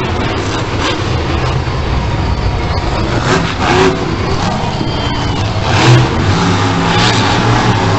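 Monster truck's supercharged V8 engine running hard and revving as the truck drives the track, with a loud peak about six seconds in.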